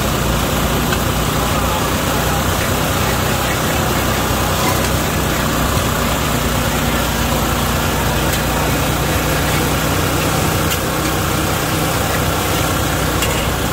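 Noodles stir-frying in a steel wok over a gas burner: a steady rush of burner and sizzling over a constant low hum, with a metal spatula now and then clinking against the wok.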